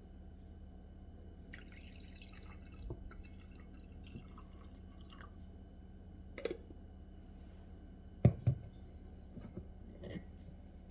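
A few scattered light knocks and clicks, the loudest a pair about eight seconds in, over a steady low hum, with faint rustling around two seconds in.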